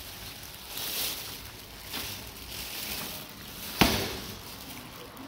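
Background noise with soft rustling swells and one sharp knock a little before four seconds in.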